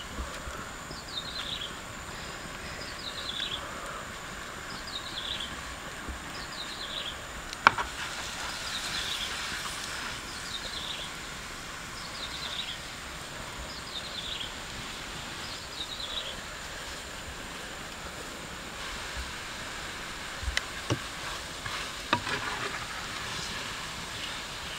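Outdoor ambience: a short falling animal call repeats every second and a half to two seconds over a steady, thin, high insect drone. A sharp click sounds about eight seconds in, and a few lighter knocks come near the end.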